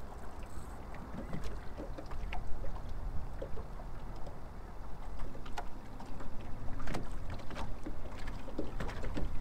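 Small waves lapping and slapping against the hull of a drifting fishing boat, in irregular short splashes and knocks over a steady low rumble of wind on the microphone.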